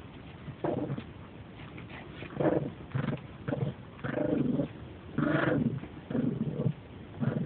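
Dog growling in short, repeated bursts while it plays at tugging and biting a plush toy: playful growls, not aggression.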